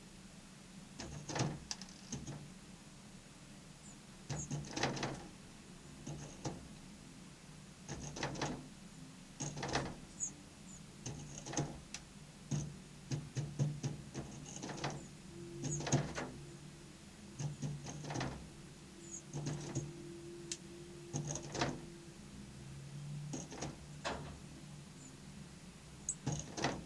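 Irregular sharp taps and knocks, often two or three in quick succession, every second or two, over a steady low hum, with a few faint short high chirps.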